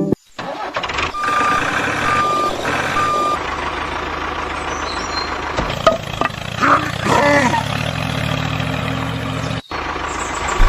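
Truck engine running with a reversing alarm beeping three times, evenly spaced, in the first few seconds.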